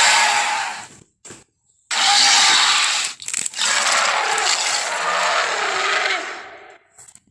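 Dinosaur roar sound effects for Gorosaurus, made from Torvosaurus sounds: a harsh, noisy roar fades out about a second in. A brief click follows, then a roar of about a second and a longer roar of about three seconds.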